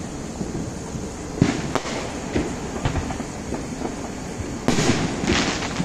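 Distant neighborhood fireworks going off: a sharp bang about a second and a half in, scattered smaller pops after it, and a burst of crackling near the end, over a steady low rumble.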